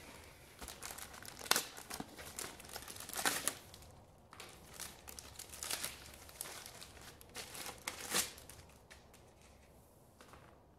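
Clear plastic packaging crinkling and crackling as hands open the bag and pull out a paint strainer's pour spout and mesh filters, in irregular bursts that die down near the end.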